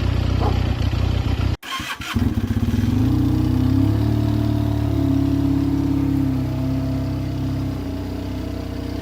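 Benelli 302S parallel-twin motorcycle engine idling through its exhaust, with an abrupt cut about a second and a half in to the same engine idling again, now through the muffler with an internal restriction removed for a louder sound. After the cut the engine note climbs slightly, holds steady, then eases down near the end.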